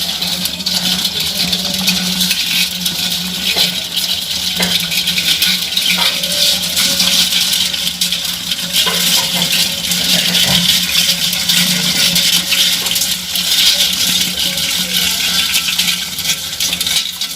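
Crabs clicking and crackling: a dense, continuous patter of fine clicks, with a low steady hum underneath.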